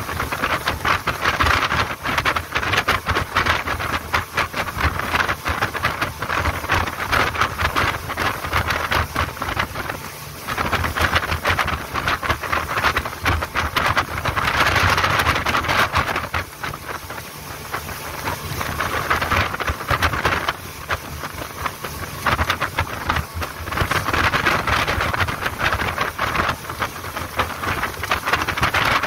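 Speedboat under way at speed: a steady engine hum beneath loud rushing wind and water spray along the hull. The rush swells and eases every several seconds.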